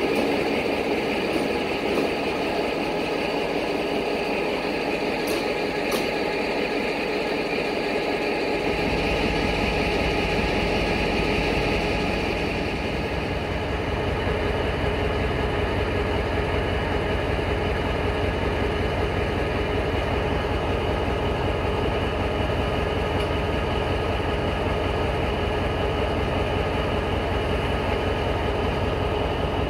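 A railway engine idling at a steady hum. About a third of the way in, a low, even throb starts suddenly and keeps going, while an electric commuter train moves off along the platform.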